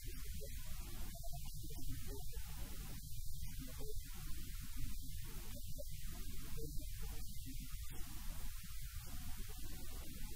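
Steady low electrical mains hum.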